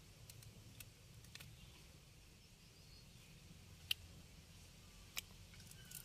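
Near silence with a few faint, sharp clicks and rustles from small fish being picked out of a fishing net by hand; the sharpest click comes about four seconds in.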